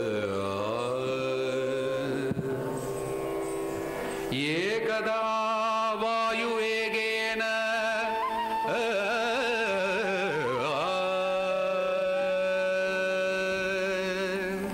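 Carnatic music: a melodic line of held notes with wavering ornaments over a steady drone. A new phrase enters with a rising glide about four seconds in.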